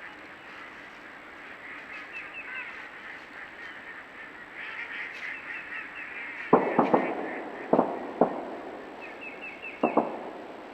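Geese honking: a flock calls steadily, with a run of loud, close honks about two-thirds of the way through and two more near the end.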